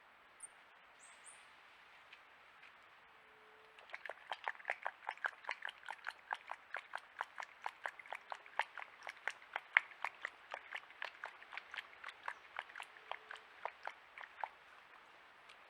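An animal chewing something crunchy: a fast, even run of crisp crunches, about four a second, starting about four seconds in and stopping about a second before the end. A couple of faint high chirps come near the start.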